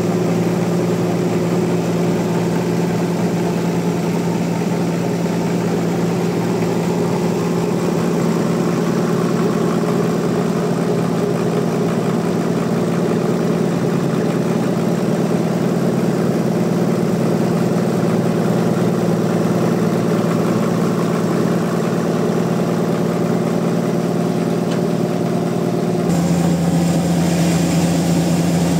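Sawmill machinery running steadily, a loud engine-like hum holding one pitch. About 26 seconds in, the sound changes abruptly.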